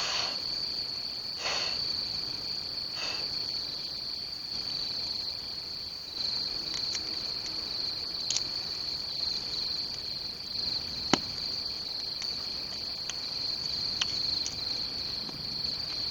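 Chorus of crickets and other field insects at night, a steady high-pitched trill that never lets up. A few sharp clicks and cracks stand out over it, the loudest about eleven seconds in.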